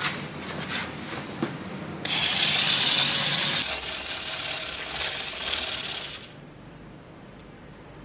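A small wire whisk beating a liquid sauce in a small glass, its metal wires scraping and rattling against the glass. It starts suddenly about two seconds in and stops about six seconds in.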